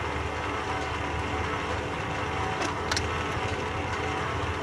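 Carroll & Jamieson 16 x 60 inch engine lathe running, a steady geared hum from its headstock and gear train. Two short sharp clicks a little past halfway.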